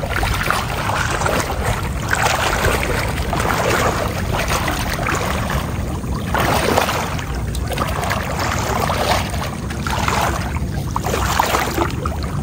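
Water sloshing and swishing around the legs of a person wading knee-deep through floodwater, rising and falling in uneven surges with the strides.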